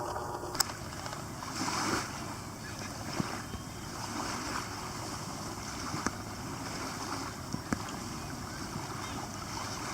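Small lake waves washing on the beach with wind on the microphone, broken by a few sharp clicks.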